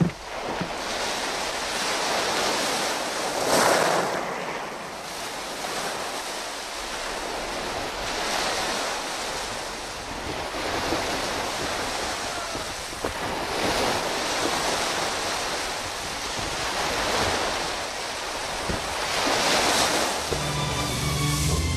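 Ocean surf: waves crashing against a rocky shore, swelling and falling back about every four to five seconds. Music comes in near the end.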